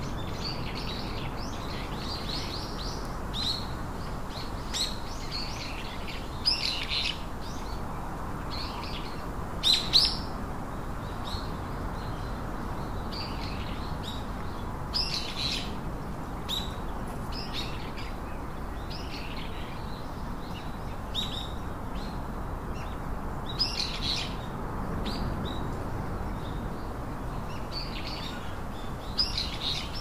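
Baby birds chirping in short, high, irregular calls, over steady background noise.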